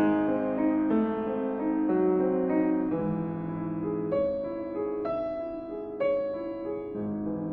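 Solo piano playing a slow, gentle piece: low held chords change about every four seconds beneath a melody of single notes.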